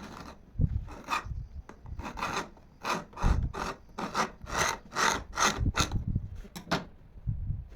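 A hand tool worked back and forth against wood, a dozen or so short scraping strokes at roughly two a second.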